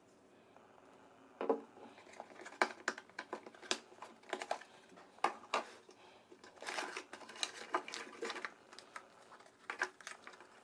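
Light handling of a phone's cardboard box and plastic packaging tray: a string of small taps, clicks and rustles as the pieces are lifted and set down, starting about a second and a half in.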